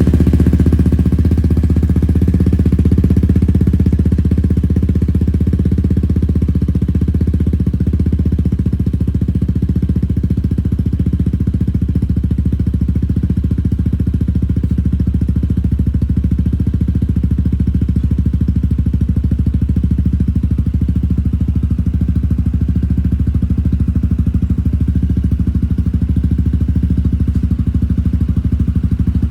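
Kymco S400i scooter's single-cylinder engine idling steadily through an Arrow exhaust with the dB killer removed, a loud, deep exhaust note. The idle settles slightly about eight seconds in, shortly after starting.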